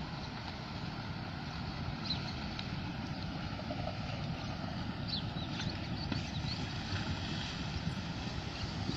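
Steady low roar of a flash flood coming down a dry riverbed, not yet in sight, with a few faint high chirps.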